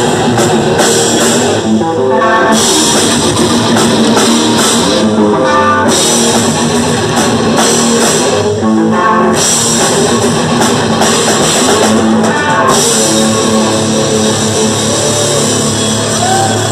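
Death metal band playing live: electric guitar and bass guitar over a drum kit with cymbals, loud and steady, in a riff pattern that repeats about every three and a half seconds.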